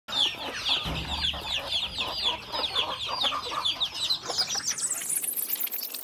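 A flock of chickens calling, a dense run of short, high, falling peeps and clucks. Near the end a rising sweep climbs in pitch over the calls.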